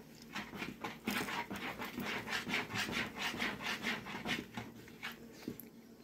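Thick jatobá-and-wheat-flour cake batter being stirred in a plastic bowl, making rhythmic scraping strokes about four times a second. The stirring starts about a second in and fades near the end.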